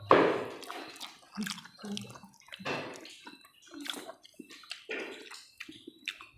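Close-miked wet eating sounds: irregular slurping, smacking and chewing, loudest in a burst right at the start.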